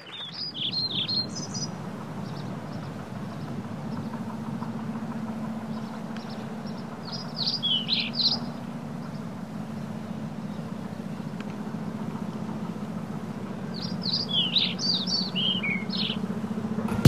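Small birds chirping in three short bouts about seven seconds apart, over a steady low hum and background noise.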